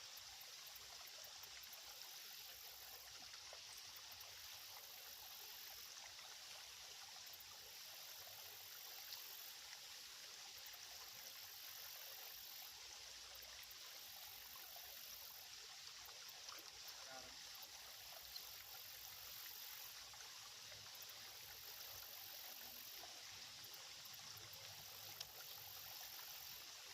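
Small shallow creek flowing: a faint, steady trickle of running water, with a few faint ticks.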